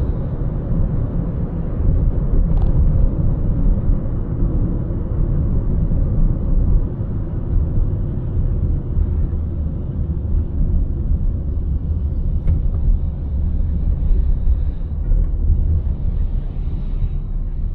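Car driving on city roads: a steady low rumble of tyres and engine, with a faint tick about two and a half seconds in and another about twelve seconds in.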